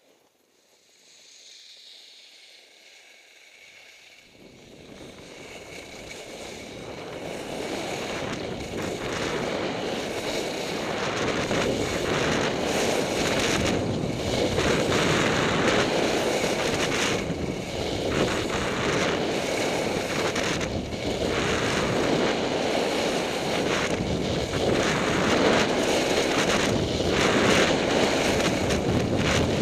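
Wind rushing over an action camera's microphone during a fast downhill ski run, rising from faint to a steady loud rush over the first ten seconds or so as the skier gains speed. Skis scrape on the groomed snow with each turn, every second or two.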